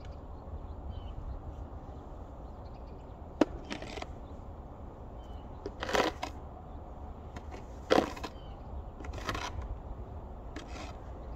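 About six sharp cracking or scraping strokes at irregular intervals, the loudest two near the middle, over a steady low rumble.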